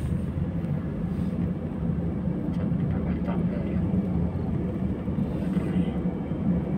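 Steady low rumble of a car's engine and tyres on the road, heard from inside the cabin of the moving car.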